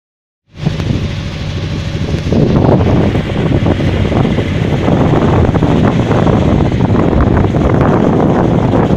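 Small passenger ferry's engine running steadily, with wind buffeting the microphone; the rumble gets louder about two seconds in.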